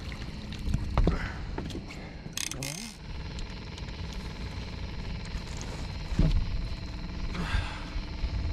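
A landing net with a flathead catfish in it being brought aboard and handled on the boat deck: scattered knocks and scuffs, with a short rattling burst between two and three seconds in, over a steady low hum.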